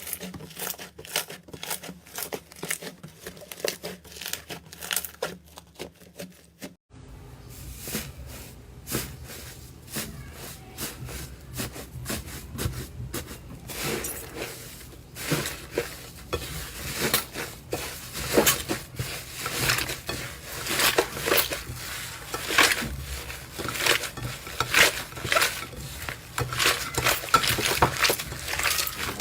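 Slime being squished and stretched by hand, giving dense, irregular crackling clicks and pops. About seven seconds in the sound cuts to another slime clip with a low hum underneath, where the pops grow louder.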